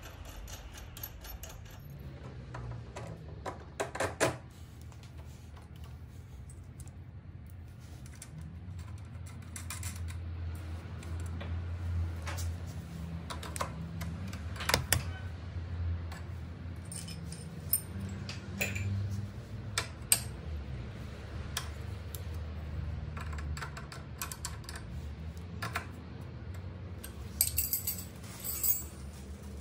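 Scattered metallic clicks and clinks of an open-end wrench and steel parts as an ATV's steering tie-rod end is fitted to the knuckle and its nut tightened, with a quick cluster of clinks near the end. A low steady hum runs underneath.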